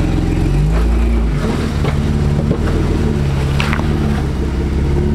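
Off-road 4x4 truck engine running loudly, its revs rising and falling several times, with a short sharp noise about three and a half seconds in.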